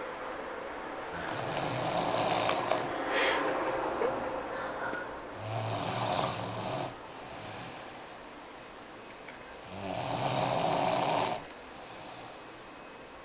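Snoring in a slow rhythm: three long snores, each lasting one to two seconds and about four seconds apart, with quieter breathing between.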